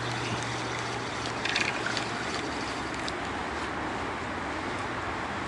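Steady outdoor background noise with a low hum that fades after about a second, and a few light clicks about a second and a half in as the fishing rod and reel are handled.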